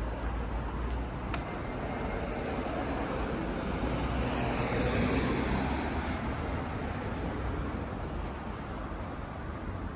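A car passing by on the street, its noise swelling to a peak about five seconds in and then fading, dropping in pitch as it goes past, over a steady low traffic hum.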